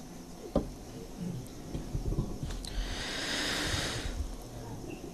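A pause in Quran recitation: the reciter draws a long breath at the microphone, a breathy hiss lasting over a second about three seconds in. A single sharp tap comes just after the start, over a low background rumble.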